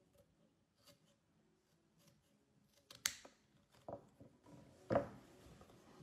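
Scissors snipping the corner of a cardboard milk carton, then a sharp click as the scissors are set down on a table and a dull thump as the carton is handled.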